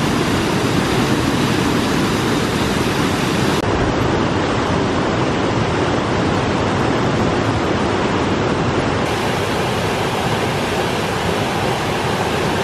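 Steady rush of a whitewater cascade pouring over and between boulders, loud and even throughout. The sound brightens or dulls slightly about four seconds in and again about nine seconds in.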